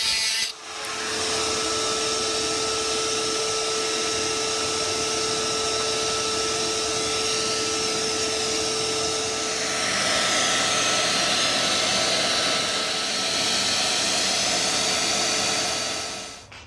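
Angle grinder cutting steel plate, a steady whine and hiss that changes slightly about ten seconds in and stops just before the end.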